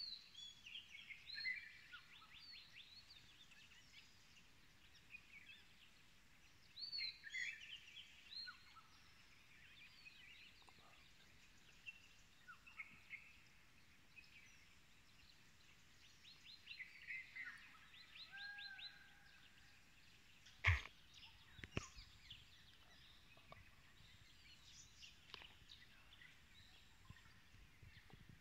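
Wild birds calling faintly in several bursts of quick chirps and trills. Two sharp knocks about a second apart come about two-thirds of the way through, the first the loudest sound.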